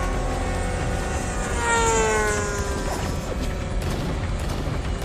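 Radio-controlled model warplanes whining overhead. One passes close about two seconds in, and its pitch falls as it goes by. Wind rumbles on the microphone throughout.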